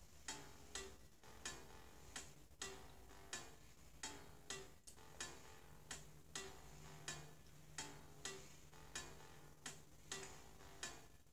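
Metronome-style click ticking steadily and faintly, about three ticks every two seconds, with every third tick carrying a short low tone like an accented beat, keeping time through an instrumental gap in the song.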